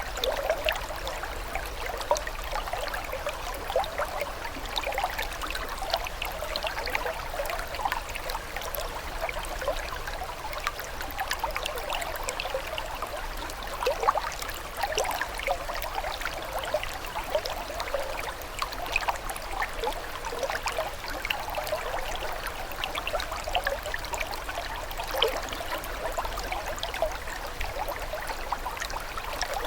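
Running water trickling and babbling steadily, a dense, even patter of small splashes and gurgles with no break.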